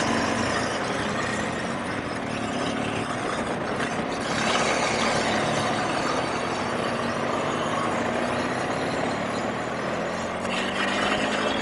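BMW R1200GS Adventure's boxer-twin engine running at low speed while filtering through traffic, its note drifting gently up and down, under a steady rush of wind and road noise.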